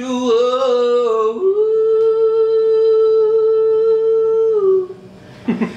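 Male singing voice holding a long note unaccompanied. About a second and a half in the pitch leaps up, and the note is held steady for about three seconds before trailing off.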